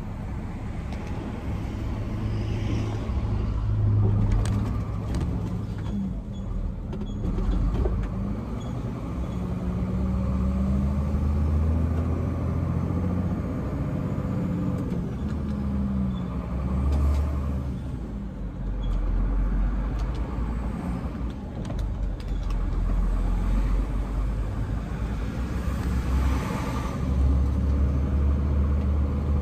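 Iveco truck's diesel engine heard from inside the cab while driving, a steady low running sound whose pitch rises and falls as the truck speeds up and slows.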